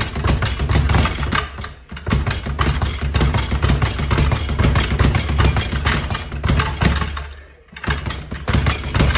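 Speed bag being punched in a fast, steady rattle, the bag drumming against its rebound board. The rhythm breaks off briefly about two seconds in and again near the end before picking up once more.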